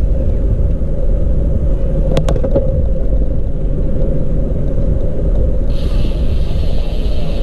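Steady low rumble of wind buffeting the microphone while cycling, with two sharp clicks about two seconds in and a higher hiss joining about six seconds in.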